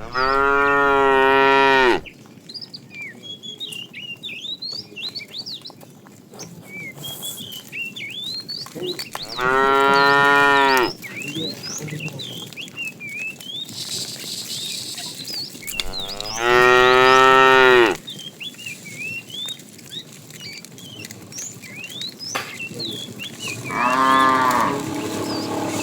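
Cattle mooing: four long, loud moos several seconds apart, with many short high chirps in the gaps between them.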